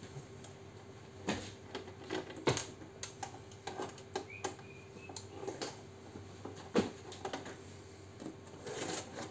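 Screwdriver and hands working on the casing and frame of a Tally T5040 passbook printer: scattered clicks and knocks of tool and plastic parts at irregular intervals, with a brief squeak about halfway through.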